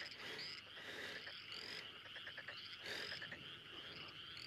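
Faint ambient chorus of small calling animals: short rising high chirps repeat about once or twice a second over a steady high buzz.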